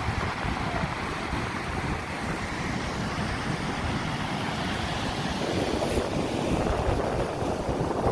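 Surf washing on a sandy beach, with wind buffeting the microphone in low rumbles. A wave surges louder about five seconds in.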